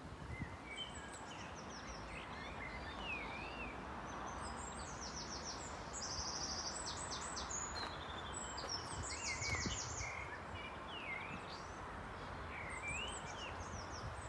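Several songbirds singing, with repeated chirps, sweeping notes and rapid trills, over a steady hiss of background noise.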